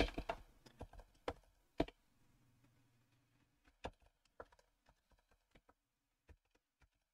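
Computer keyboard typing: a quick run of key clicks at the start, then single keystrokes scattered about half a second to a second apart as a short terminal command is typed. A faint low hum underneath stops about three and a half seconds in.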